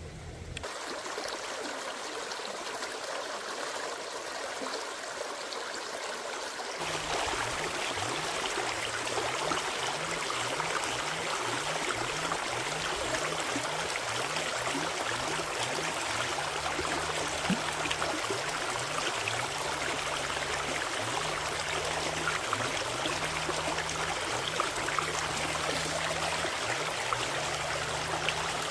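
Stream water flowing in a steady rush, getting louder and fuller about seven seconds in.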